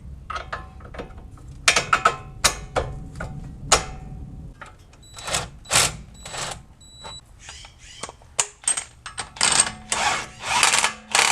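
Metal hand tools clicking and clanking on car parts during reassembly after a new front axle is fitted, some strikes ringing briefly. Near the end come several longer rasping bursts.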